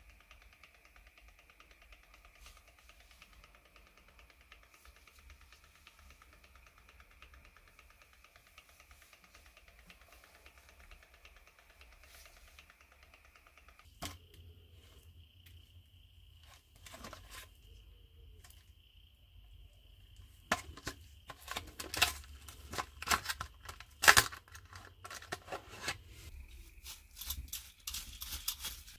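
A run of sharp clicks and crackles from hands working a toy car's plastic and cardboard packaging, coming thickly in the second half with one loud snap near the end. Under it is a faint, steady, high insect chirring.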